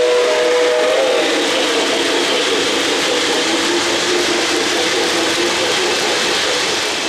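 O-gauge model steam locomotive's sound system blowing its steam whistle, which bends in pitch and stops about a second in. After it comes the steady rolling noise of the train's passenger cars running past on the track.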